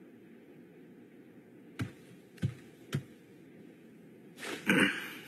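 Three light knocks on a door, about half a second apart, over a faint steady hiss. Near the end a much louder noisy sound swells in.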